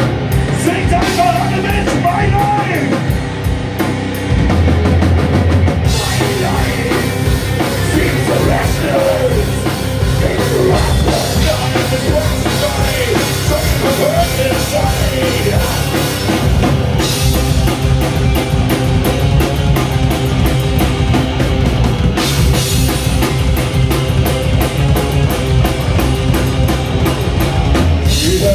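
Live hard rock band playing an instrumental passage: distorted electric guitars, bass and a drum kit, with a lead guitar line bending and wavering over the riff.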